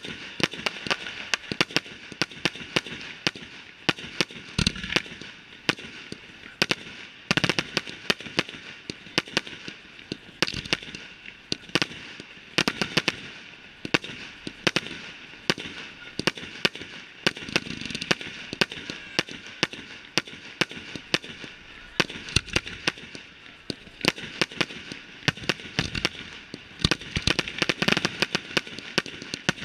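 Firework display: a continuous rapid stream of sharp bangs and crackles, with a few deeper booms among them.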